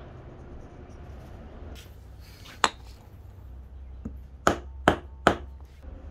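Hammer with a cloth-wrapped head striking the end of a wooden knife handle to seat a metal ferrule: one sharp blow, then three quick blows about 0.4 s apart near the end.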